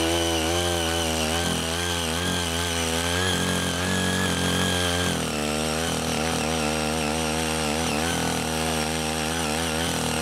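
CHING YEE CY80 mini cultivator's small engine running steadily under load as its rotary tines till dry soil, the engine's pitch wavering slightly.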